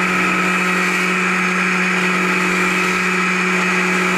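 Stihl chainsaw with a narrow carving bar running at high revs while it cuts into a small log, with a steady, high-pitched engine drone.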